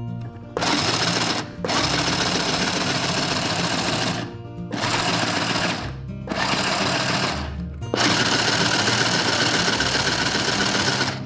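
Toy sewing machine running as fabric is fed through it, stitching in about five stretches with short pauses between them.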